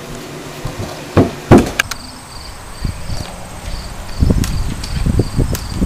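A couple of sharp knocks, then insects chirping outdoors in a steady pulsed rhythm, a little over two chirps a second, over a high thin steady tone. From about four seconds in, low rumbling noise joins in.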